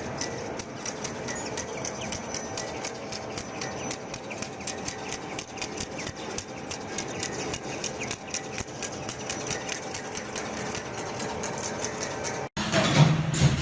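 A machine running steadily with a fast, even clicking rhythm over a mechanical hum. Near the end it cuts off abruptly and a louder, deeper rumbling machine takes over.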